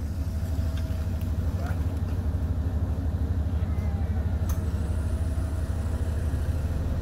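A motor vehicle engine idling close by: a steady low rumble with a quick, even pulse.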